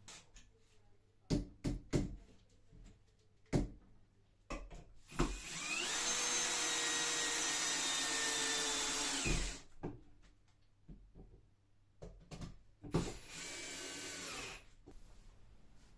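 A small electric motor, most like a handheld power tool, runs twice. The first run lasts about four seconds, with a whine that rises as it spins up and falls as it winds down; the second, shorter and quieter run comes near the end. Sharp knocks and clatter come before and between the two runs.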